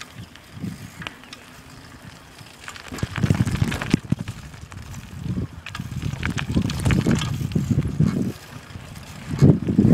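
Riding a bicycle with the camera carried along: wind buffeting the microphone, with a rough low rumble and many clicks and knocks. It is fairly quiet at first and turns loud about three seconds in.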